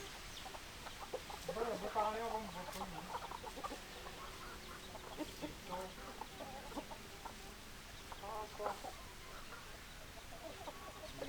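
Chickens clucking, with scattered short clucks throughout, a longer wavering call about two seconds in and another burst of clucks near the end.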